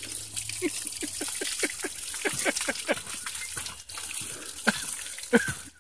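A thin jet of water spraying and spattering on a horse's head and coat over a steady hiss, with many short, irregular splashes, a few each second.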